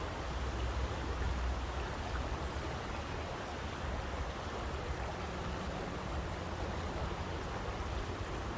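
Steady rushing water noise with a low rumble underneath, even and unchanging, as in a white-noise sleep recording.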